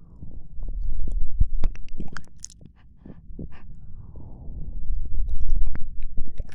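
Close-miked ASMR breathing and mouth sounds: two long soft breaths into the microphone, each about two seconds, rumbling low on the mic, with scattered wet tongue and lip clicks throughout.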